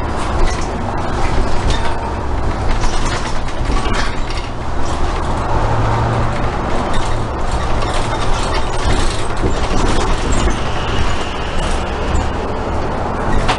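Inside a Nova LFS articulated city bus on the move: a steady low engine drone, swelling a little about halfway through, with frequent rattles and clicks from the bus.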